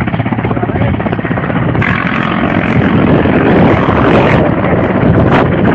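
Helicopter rotor chopping overhead, a fast, steady beat of pulses.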